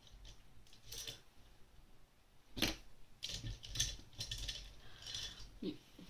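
Small handling noises on a craft table as paintbrushes and a paper towel are handled: a sharp knock about two and a half seconds in, then a run of light clicks and rustles.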